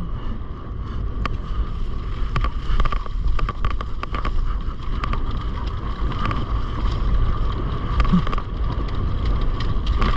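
Enduro motorcycle ridden slowly over rough ground: a steady low rumble with wind buffeting the microphone, a constant high tone, and frequent clicks and knocks as the bike rattles over the terrain.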